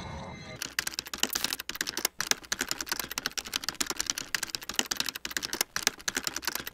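Rapid keyboard typing: a fast, uneven run of sharp keystroke clicks, many a second, starting about half a second in. It is a typing sound effect for text being typed out letter by letter.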